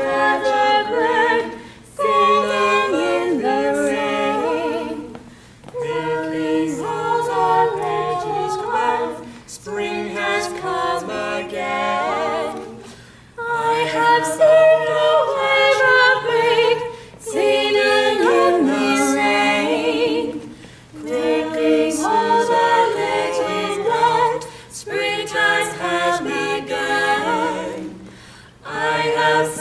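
Several voices singing a cappella in harmony, in phrases of three to four seconds separated by short breath pauses.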